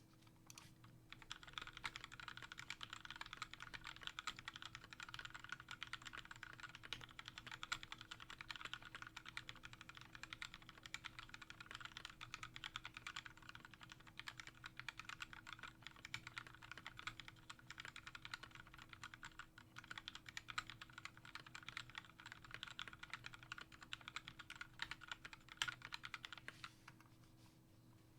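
Continuous typing on a custom mechanical keyboard with lubed Gateron Yellow linear switches, a brass plate, an acrylic Tofu case and Havit pudding keycaps: a dense stream of key clacks that starts about a second in and stops near the end, over a faint steady hum.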